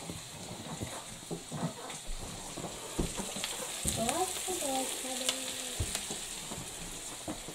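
Flour-dredged chicken pieces sizzling as they shallow-fry in hot oil and butter in a frying pan. A few sharp clicks and knocks come from the pieces being handled and laid in the pan.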